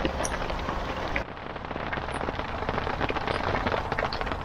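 Steady heavy rain falling on canal water; after a cut about a second in, rain striking a narrowboat's window, heard from inside the cabin, with many single drops ticking.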